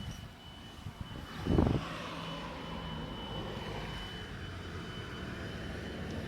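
Steady low engine-like droning hum with a thin, steady high-pitched whine over it: the unexplained sound that has been heard for days. A short loud thump comes about a second and a half in.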